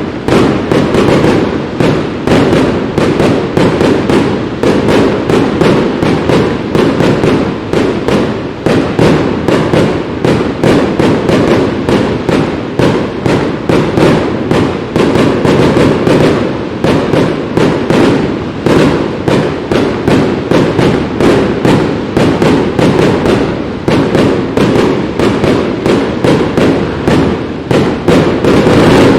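Aerial fireworks bursting in a dense, continuous barrage, two or three loud bangs a second over a steady low rumble.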